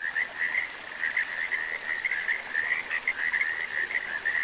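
Chorus of frogs calling together, a dense pulsing trill held at one high pitch.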